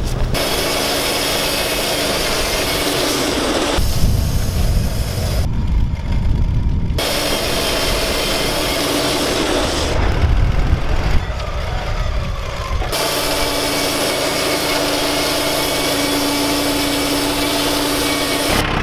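Wood-Mizer LT35 portable bandsaw mill running, its engine and band blade sawing through a log. The sound shifts abruptly several times between a deeper engine rumble and a brighter cutting noise, then settles into a steady hum with a held tone over the last few seconds.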